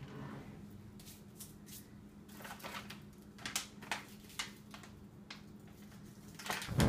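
Plastic bag of cat treats crinkling as it is handled and opened, a string of short, sharp rustles, after a wooden kitchen drawer is slid open; a dull thump near the end.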